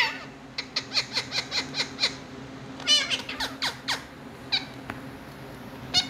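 Indian ringneck parakeet calls: a quick run of short, high, falling chirps, then a longer squawk near the middle followed by a few more chirps and single calls.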